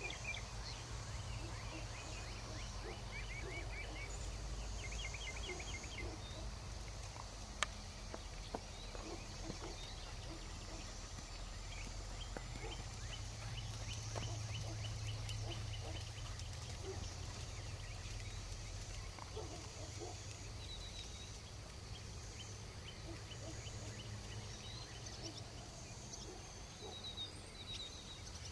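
Outdoor farm ambience: birds calling faintly, with short repeated chirping trills every few seconds, over a steady low rumble.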